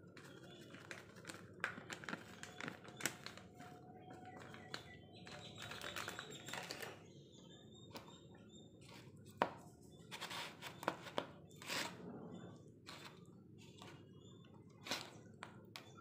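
Scattered light clicks, taps and rustles of hands and a utensil handling spice containers while masala is added to fish in a steel bowl, with a few sharper knocks in the second half.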